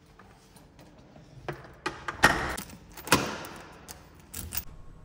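A run of knocks and clatters, the two loudest about two and three seconds in, each followed by a short rustling scrape.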